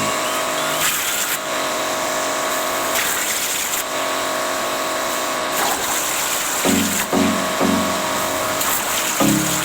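CNC plasma cutter running a cut: a steady, loud hiss with a few steady tones through it. Short low pitched tones come in a few times about two-thirds of the way through and again near the end.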